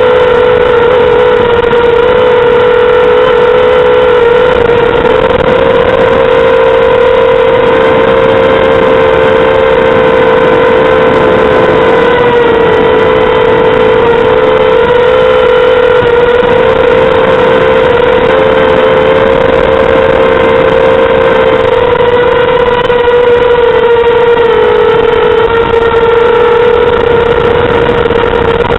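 Mini quadcopter's brushless motors and propellers whining steadily in flight. The pitch wavers slightly as the throttle shifts, and the sound is loud and close, as picked up on board.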